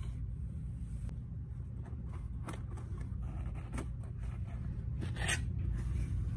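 Cardboard shipping box handled and opened by hand, its flaps scraping and crackling. There are short crackles about two and a half seconds in and near four seconds, and a louder burst of crackling a little after five seconds, over a steady low hum.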